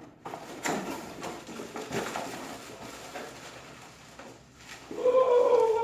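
Packaging being torn open and handled: rustling with several knocks and scrapes. About five seconds in comes a louder, steady pitched sound that lasts about a second.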